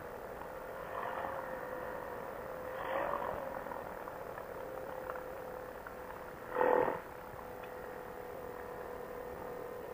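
Quicksilver Sprint ultralight's engine running steadily at low throttle during landing and rollout on grass, with a short loud bump about two-thirds of the way through.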